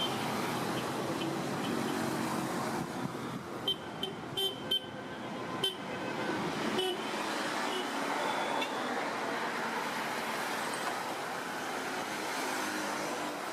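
Road traffic noise, with a run of short horn toots in the middle.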